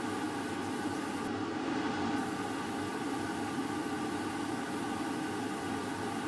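Air spray gun spraying paint: a steady hiss of air over a constant motor hum, the highest part of the hiss easing off briefly about a second and a half in.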